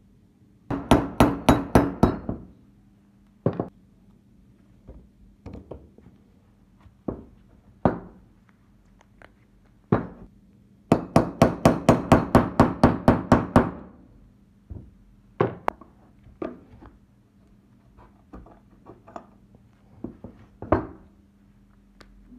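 A small hammer tapping a punch against the steel frame of a Beretta M1935 pistol, driving a part out. There are two rapid runs of sharp metallic taps, about five a second: a short one about a second in and a longer one near the middle. Single knocks and clinks fall between them.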